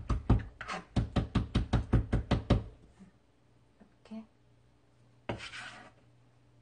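Kitchen knife rapidly chopping herbs on a plastic cutting board, sharp knocks about five or six a second that stop about two and a half seconds in. Near the end comes a brief scrape as the chopped greens are swept off the board.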